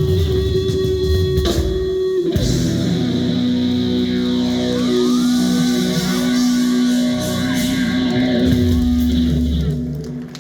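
Live rock band playing, led by electric guitar with long held notes and some bent notes, dropping off sharply just before the end as the song finishes.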